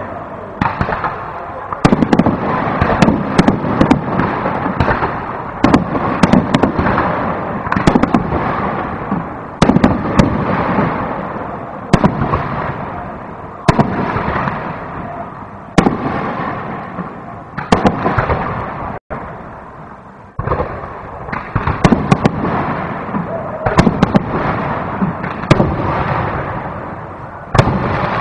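Aerial fireworks display: shells bursting in close succession, a sharp bang every second or two over a continuous din of crackling and lesser bursts. The sound cuts out for an instant about two-thirds of the way through.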